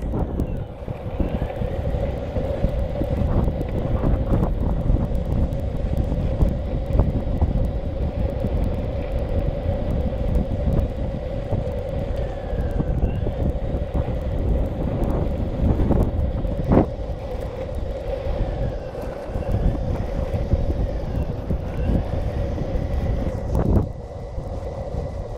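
Boosted electric longboard riding on asphalt: a steady wheel rumble under heavy wind buffeting on the microphone, with a faint motor whine that rises and falls with speed. A single sharp knock comes about two-thirds of the way through.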